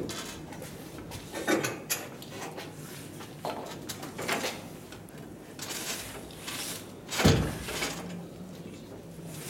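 Scattered knocks and scrapes of a heavy wooden floor joist being handled and set in place against a concrete-block wall. The loudest knock comes about seven seconds in.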